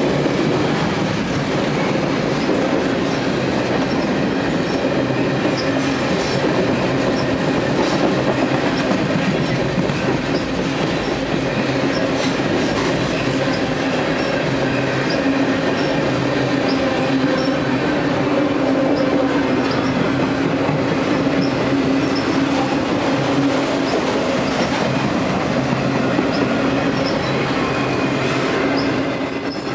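Freight train passing close by, tank cars and then autorack cars, with a steady rumble of steel wheels on rail, a sustained hum and evenly spaced light clicks from the wheels.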